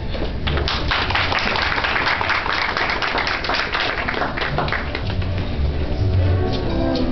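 Many hands clapping in a dense burst over orchestral music; the clapping dies away about five seconds in and the music comes back to the fore.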